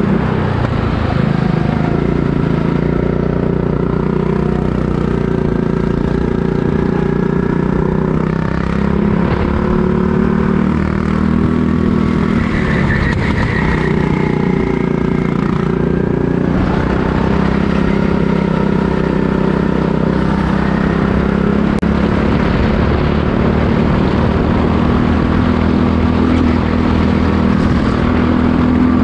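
Go-kart engine running hard during a race, its pitch rising and falling slowly as it speeds up and slows down.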